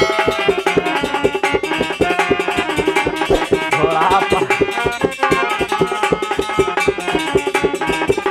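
Harmonium and dholak playing an instrumental passage of a folk song: sustained harmonium chords over quick, rhythmic hand strokes on the dholak.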